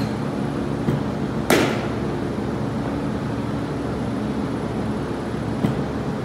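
Batting practice in an indoor cage: a steady hum with a few sharp knocks of baseball bat and balls, the loudest about one and a half seconds in with a short ringing tail, and a smaller crack near the end as the batter swings.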